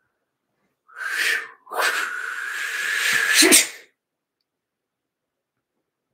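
A woman's forceful breathy vocal sounds: a short burst, then a longer breath of about two seconds with a steady whistling tone, loudest just before it stops. She describes it as clearing an energetic field.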